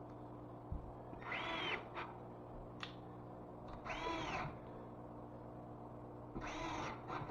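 An animal calling three times, each short call rising and then falling in pitch, over a steady low hum with a few light clicks.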